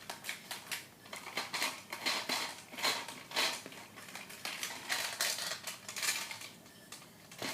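Irregular hard plastic clicks and clatter, a few a second, from a Crossfight B-daman marble-shooting toy fitted with its tune-up gear being worked and fired, its marbles rattling. The clicks pause briefly near the end.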